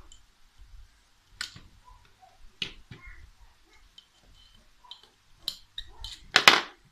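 Small metal tools clicking and tapping against an Aisan carburetor's body as its jets are worked on, in a few sharp, separate clicks. Near the end comes one louder, longer clatter of metal.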